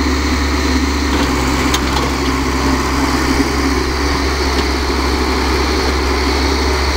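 L&T-Komatsu tracked excavator's diesel engine running at a steady speed while the machine swings and moves.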